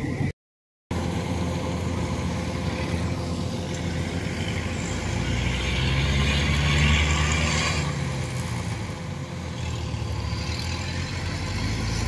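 Rice combine harvester engines running steadily, growing louder for a few seconds around the middle.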